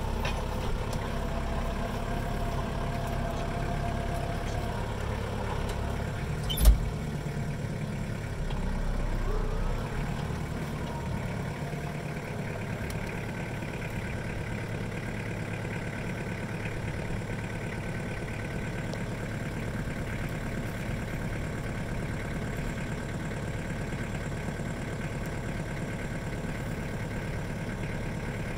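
A vehicle engine running steadily, with one sharp knock about seven seconds in; the engine noise eases slightly after about ten seconds.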